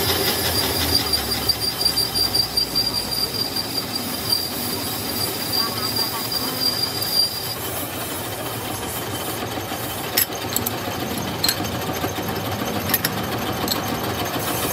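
Metal lathe turning a truck spring trunnion saddle seat, the cutting tool squealing with a steady high-pitched whine that stops about halfway through. The lathe keeps running after that, with a few sharp clicks.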